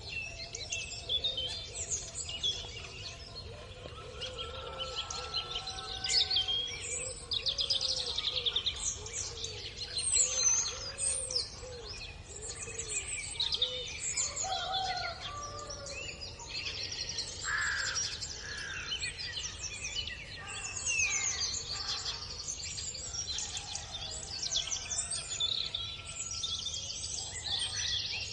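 Many birds chirping and singing at once, a dense overlapping chorus of quick high trills and chirps, with some lower calls underneath.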